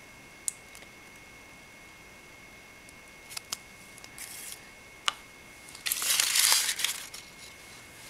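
Hands handling crinkly packaging: a few small clicks and taps, a short rustle about four seconds in, then a louder crinkling rustle lasting about a second near six seconds in.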